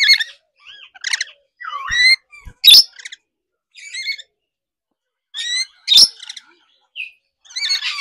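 Lorikeets giving a string of short, shrill squawks and chirps, some gliding up or down in pitch, with brief gaps between them.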